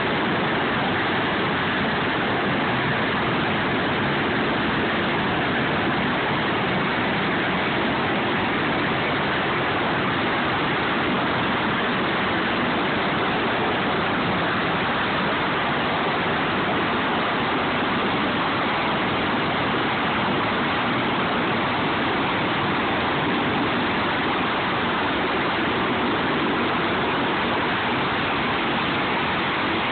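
Sikorsky MH-53E Sea Dragon helicopter running on the ground, its three turbine engines and main rotor making a loud, steady rushing noise.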